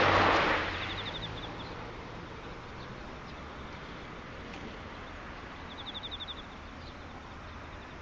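Insects singing: short, high, rapidly pulsed trills, twice, several seconds apart, over a faint low hum. A passing vehicle's noise dies away over the first second.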